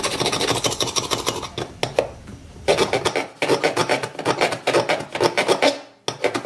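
A steel knife blade scraped rapidly back and forth across the aluminium side frame and glass back of an iPhone 8 Plus in a scratch test. It makes a fast rasping run of strokes, with a short pause about two seconds in.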